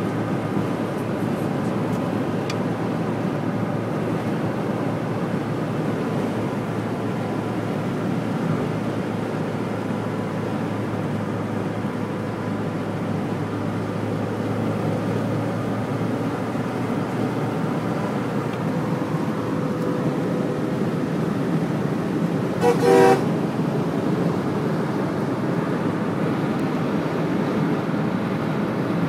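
Steady drone of motorway traffic, engine and tyre noise on a wet road. Late on, a vehicle horn gives a short double toot, the loudest sound.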